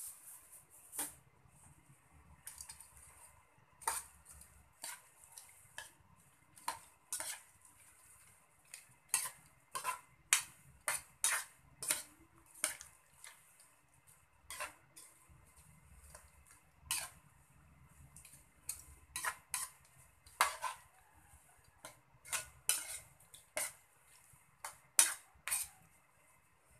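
Metal spoon scraping and clinking against a wok while stirring a thick mix of grated jackfruit, coconut milk and dried anchovies. The sharp strokes come repeatedly at an uneven pace.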